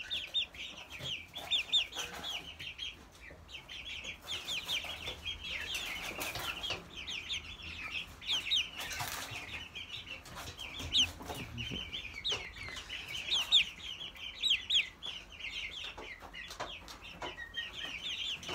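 A flock of young Plymouth Rock and Orpington chickens peeping continuously, many short high chirps overlapping one another, with a couple of brief rustles.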